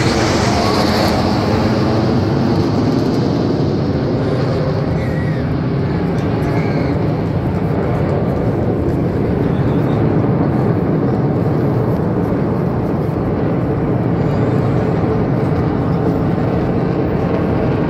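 Jet noise from a formation of T-50B jet aircraft flying overhead: a loud, steady rushing sound, mostly low, with a higher hiss that fades over the first couple of seconds.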